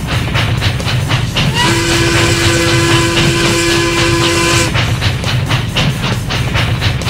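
Steam train sound: rhythmic chugging and wheel clatter at about four beats a second, with the locomotive's steam whistle blowing one steady chord-like blast for about three seconds, starting a second and a half in and cutting off sharply.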